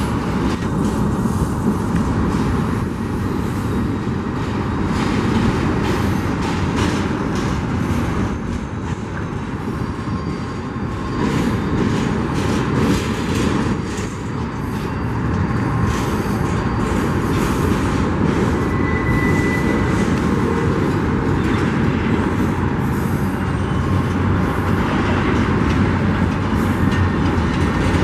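Empty intermodal well cars of a slow-rolling Union Pacific freight train passing close by: a steady rumble of steel wheels on rail, with frequent rattles and clanks from the cars.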